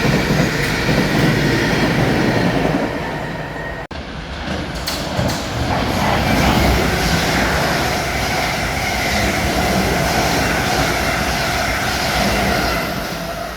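A train running on the line, with a continuous rumble of wheels on rail and a steady whine over it. The sound breaks off sharply about four seconds in and picks up again at once.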